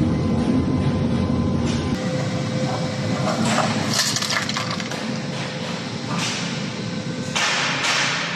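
Industrial double-auger meat grinder running with a steady drone and hum, with several short bouts of crackling about three to four seconds in, around six seconds and near the end as material is worked through it. The low rumble drops away suddenly about two seconds in.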